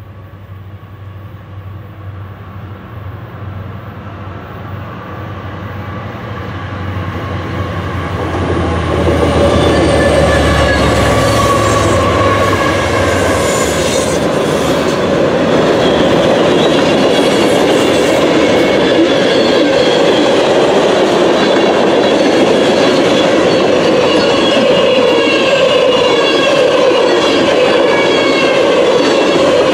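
Norfolk Southern freight train's diesel locomotives approaching and passing, their low engine rumble growing louder over the first nine seconds. Then a long line of tank cars rolls by, steady and loud, with wheels on the rail and a thin, wavering high squeal.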